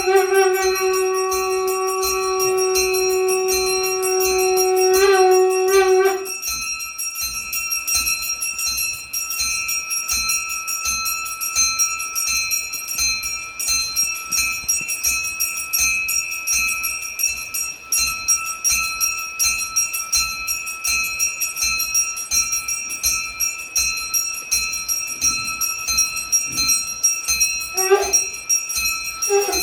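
Brass puja hand bell rung rapidly and without a break for worship, its ringing tones held over the fast strikes. A long steady note from a blown conch shell sounds over the bell for about the first six seconds and again briefly near the end.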